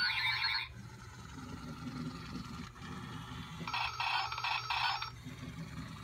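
Battery-powered Zhu Zhu Pets Siberian husky toy puppy playing short electronic sound-chip noises: a half-second burst of ringing tones at the start and a longer burst about four seconds in, over a steady low hum.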